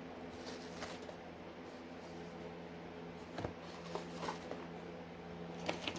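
Faint handling noises of packaging and small cosmetic items: a few soft clicks and rustles, over a low steady room hum.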